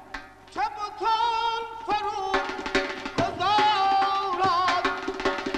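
Middle Eastern-style music. A solo voice sings two long, wavering phrases over a steady drone, rising into each one. Sparse drum strikes come back into a hand-drum rhythm near the end.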